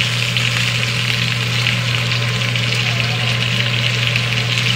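Chicken pieces sizzling steadily as they fry in a skillet, over a steady low hum.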